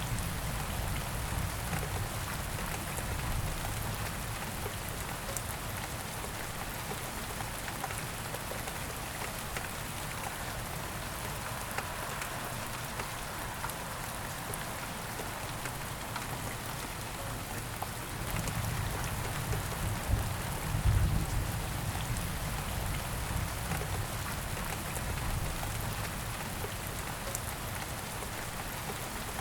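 Steady rain falling, with fine drops pattering throughout. A low rumble swells for a few seconds about two-thirds of the way through.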